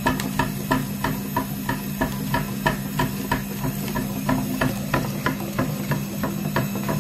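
Small electric motor driving a grinder, running with a steady hum and a sharp click about three times a second.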